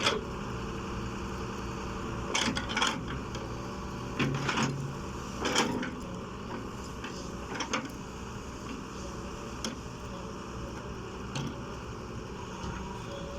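Doosan hydraulic excavator's diesel engine running steadily, with a string of short clanks and scrapes from the bucket working rock and soil, the loudest a little past four and five seconds in.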